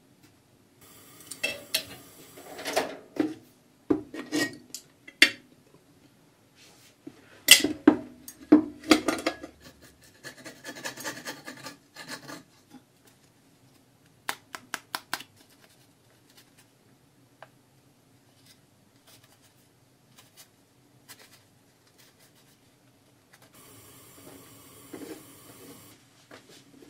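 Hands handling, pressing and flexing a small stiffened piece of nylon-polyurethane and cotton fabric on a wooden board: a run of crinkles, rustles and knocks in the first half, then a quick cluster of sharp clicks. Near the end, a steady rubbing as cloth is smoothed out over the board.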